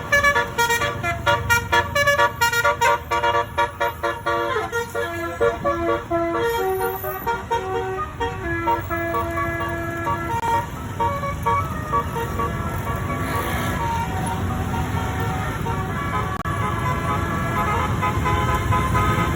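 Telolet basuri musical bus horns playing a melody: quick staccato notes for the first few seconds, then longer held notes, growing fainter in the second half, over the steady low rumble of bus engines and traffic.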